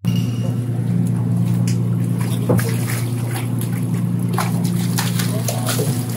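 Fishing boat's engine running with a steady low hum, with water splashing and sloshing as a long-handled landing net is worked through the boat's live well of yellowtail.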